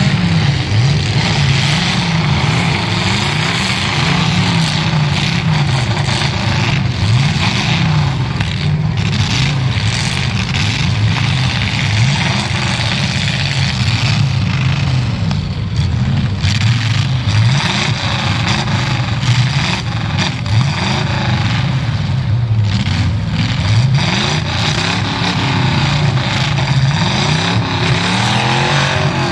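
Demolition derby cars' engines revving hard and running against each other, the pitch rising and falling over and over, with a few sharp bangs.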